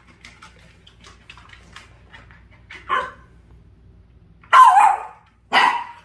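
Long-haired dachshund barking: one short bark about three seconds in, then two loud barks near the end.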